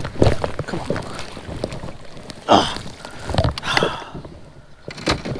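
Irregular knocks, scrapes and rustles of a landing net and fishing gear being handled aboard a plastic fishing kayak, with a louder rush of noise about two and a half seconds in.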